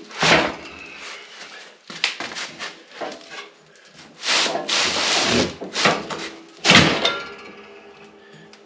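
Work noise of a snowplow being handled and fitted: a sharp knock just after the start, a scraping rush in the middle, and the loudest knock about seven seconds in.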